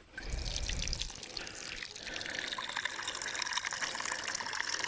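Water pouring steadily into a dog's water bowl, with a low thud as it starts.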